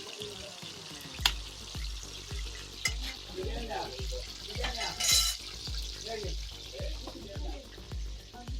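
Fish frying in hot oil in a pot, a steady sizzle, with a few sharp clicks and a scraping burst about five seconds in as it is stirred or turned. Music with a steady bass beat plays underneath.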